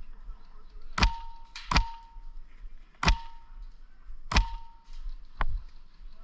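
Five sharp airsoft gun shots fired singly at uneven intervals. The first four each leave a brief metallic ring, and the last is softer with no ring.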